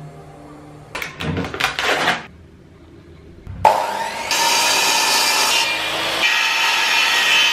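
A couple of short noises early on, then an electric mitre saw starts with a rising whine about halfway through and cuts through a wooden board, its motor running on steadily afterwards.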